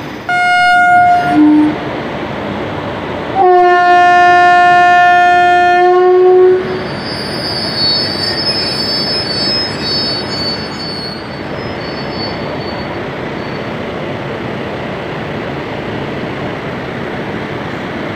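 WAP-4 electric locomotive sounding its horn as it departs: a short blast at the start, then a long blast of about three seconds. Afterwards the train rolls on with a steady rumble, and a thin high squeal rises over it for a few seconds.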